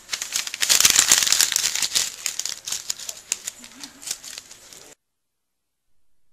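Sheets of paper being crumpled by hand into a ball: dense crinkling, loudest in the first couple of seconds, then thinning to scattered crackles as the wad is squeezed small, cutting off suddenly about five seconds in.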